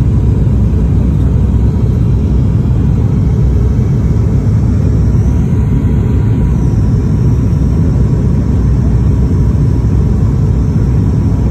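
Cabin noise of a high-wing turboprop airliner in descent: a steady, loud low rumble of engines and airflow, with a faint steady tone above it.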